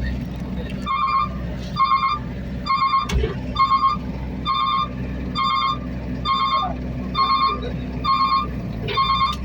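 Heavy machine's reversing/travel alarm beeping steadily, a little under one beep a second, over a diesel engine running.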